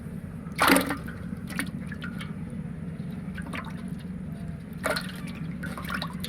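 Water splashing and dripping: one loud splash about a second in, then smaller splashes and drips, over a steady low hum.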